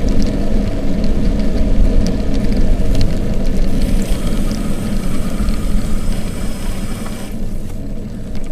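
Wind buffeting the camera's microphone as the bicycle rolls along, a loud, steady low rumble mixed with tyre noise on the road.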